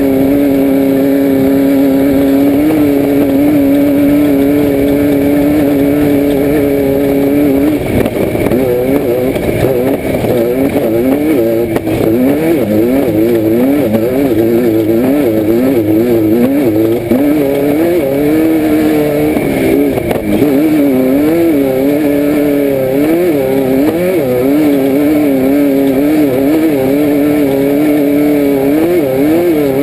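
A Class 5/1600 Baja Bug's air-cooled Volkswagen flat-four engine, heard from inside the car at high revs. It holds a steady pitch for the first several seconds, then the revs rise and fall rapidly over and over as the throttle works.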